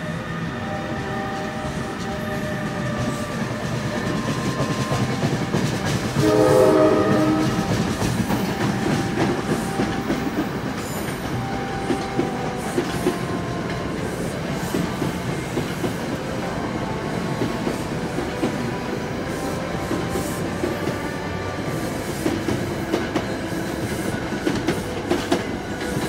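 New Jersey Transit Bombardier ALP-45A locomotive sounding its horn once, a single chord about six seconds in that lasts about a second and a half. Under it, a train runs on the rails with a steady rumble and clacking of wheels over rail joints.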